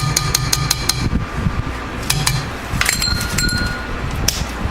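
A utensil clinking rapidly against a mixing bowl as fragrance oil is stirred into the dry bath bomb mix, with short ringing tones. A fan hums steadily underneath.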